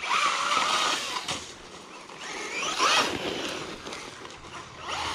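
Bezgar HM124 RC car's brushless motor, on a 3S lipo, whining in throttle bursts with a hiss of tires and water spray. It whines hard at the start, rises steeply in pitch about three seconds in as it speeds up, and comes on again right at the end.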